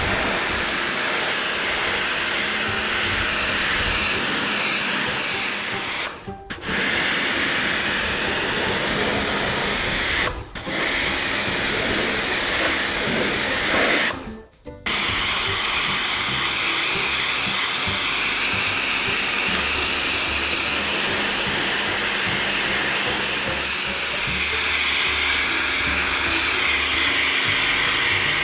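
Karcher K2 Compact electric pressure washer running, its water jet spraying on stone with a steady loud hiss and motor hum. The spray cuts out briefly three times as the trigger is let go, then carries on.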